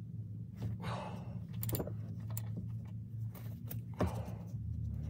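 Faint scattered clicks as the oil drain plug on a Ram ProMaster's oil pan is loosened with a 13 mm ratchet and then turned by hand, with two short breathy sounds, about a second in and near four seconds, over a steady low hum.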